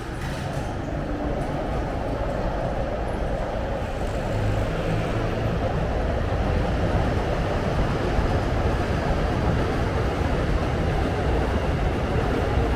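A passing train: a steady low rumble that builds over the first few seconds and then holds.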